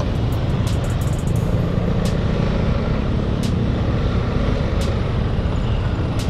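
Piaggio MP3 500's single-cylinder scooter engine idling while stopped, with motorbikes and cars passing on the road. A faint click sounds about every second and a half.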